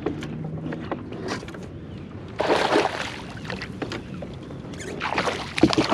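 Hooked bluefish thrashing and splashing at the water's surface right beside a kayak. There is a burst of splashing about two and a half seconds in, and more near the end.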